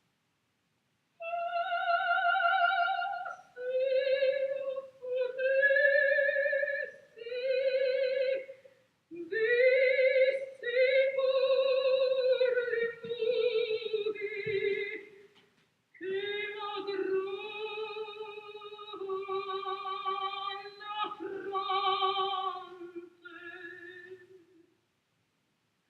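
A voice singing in an operatic style: a series of held notes with a wavering vibrato, in phrases broken by short pauses, with a break of about half a second a little past halfway.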